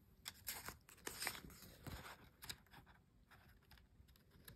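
Near silence with faint, scattered rustles and light clicks of paper, as a picture book's pages are handled.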